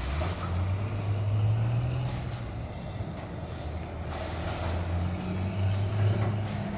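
Heavy factory entrance door being opened slightly, giving a low droning tone that wavers in pitch, with hissing bursts about every two seconds.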